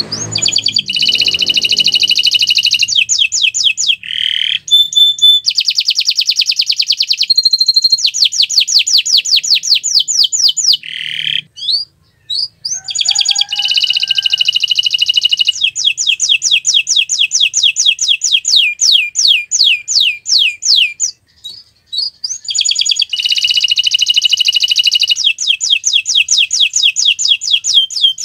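Canary singing loud, fast rolling trills of rapidly repeated notes in long phrases, with two short pauses, about two fifths of the way in and three quarters of the way in.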